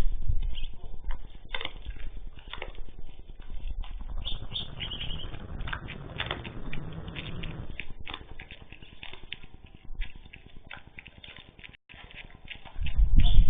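Javelinas moving about and foraging: scattered clicks, patters and rustles. A few short bird chirps come partway through, and a low rumble near the end.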